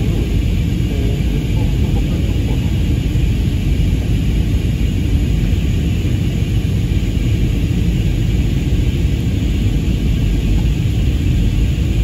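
Steady cabin noise of a jet airliner in flight: engine and airflow noise, mostly a low rumble with a lighter hiss above it, unchanging throughout.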